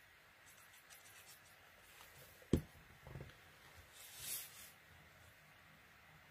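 Quiet handling of cardstock and craft tools on a tabletop: one sharp tap about two and a half seconds in, a softer knock just after it, and a brief soft swish of paper a little later.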